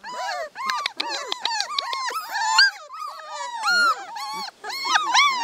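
Several young puppies whining and squealing at once: a dense run of short, overlapping high-pitched cries that rise and fall in pitch.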